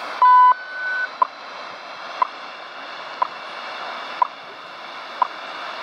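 Shortwave time-signal broadcast on 15.000 MHz, with the WWVH and BPM time stations sharing the frequency, heard in AM on a Sony ICF-2001D through steady static hiss. Near the start a strong beep marks the top of the hour, overlapped by a longer, higher tone. After that a short tick sounds once every second.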